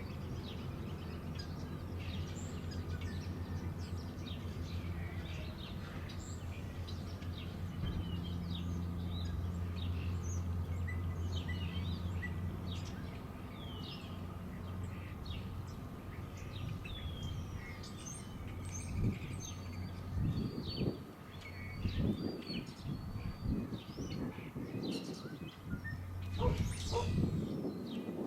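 Songbirds chirping and calling over a steady low hum. From about two-thirds of the way in, irregular low thumps come and go.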